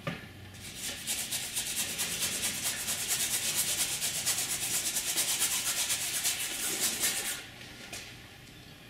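Paintbrush scrubbing paint onto canvas: a dry, rasping hiss of quick back-and-forth strokes that starts about half a second in and stops at about seven seconds.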